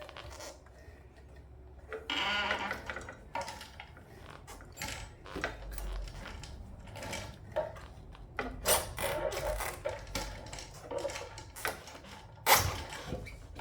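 Motorcycle front wheel being worked out of the fork. Its twin brake rotors scrape and knock against the brake calipers, which sit too tight to let them pass, making irregular metallic rubbing and clunks, with a louder knock near the end.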